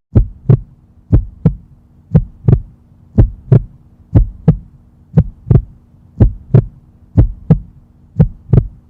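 Heartbeat sound effect: paired lub-dub thumps about once a second, over a faint steady hum.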